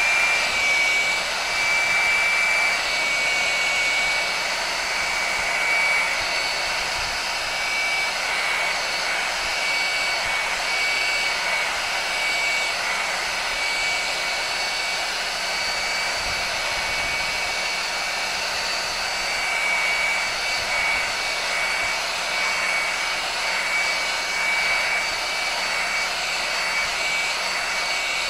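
Heat gun blowing hot air steadily, a continuous rush of air with a high motor whine, while it shrinks non-slip heat shrink tubing onto a handle.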